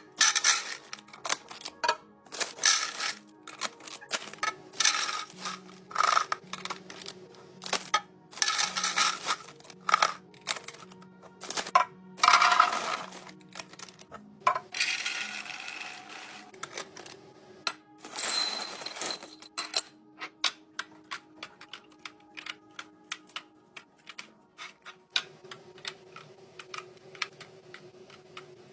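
Small hard objects clicking, tapping and clattering as containers and organisers are handled and restocked. There are a few longer, noisier rattling stretches about 12, 15 and 18 seconds in.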